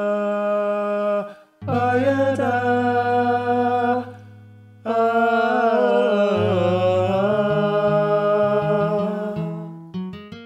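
Voices singing "by a da" in long, drawn-out phrases with held, wavering notes in harmony, unaccompanied, three phrases in all. A plucked acoustic guitar comes in near the end.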